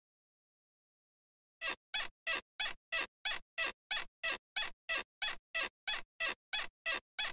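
A rapid run of short, squeaky pulses, about three a second and evenly spaced, starting about a second and a half in after a moment of silence.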